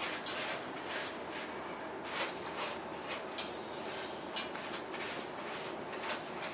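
A sleeping pet snoring: a steady breathy sound with light clicks scattered through it.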